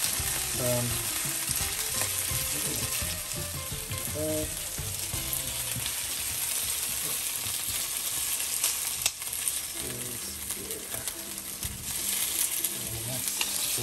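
Chicken pieces and diced onion sizzling in oil in a nonstick frying pan while a spatula scrapes and turns them. There are a couple of sharp taps of the spatula on the pan near the middle.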